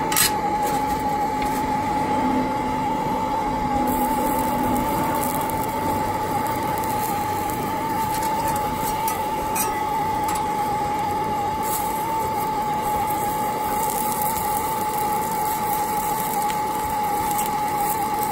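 Two gas blow lamps burning steadily under a spade blade, with a constant whistling tone over their roar, as sausages sizzle in hot oil on the metal. A few light taps are heard along the way.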